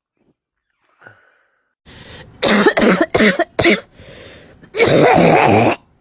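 A person in a coughing fit: a rapid run of about six short, harsh coughs starting about two seconds in, then one longer, loud cough near the end.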